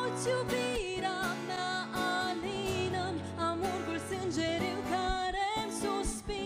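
A woman singing a Romanian folk song, her voice wavering in pitch on held notes, accompanied by two acoustic guitars.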